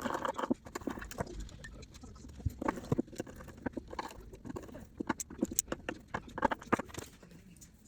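Irregular clicks and taps of small hard objects being handled, denser about a third of the way in and again past halfway, then dying away near the end.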